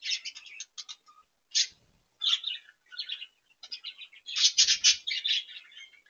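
Budgerigars chattering: quick clusters of short, scratchy chirps and warbles, busiest and loudest about four and a half seconds in.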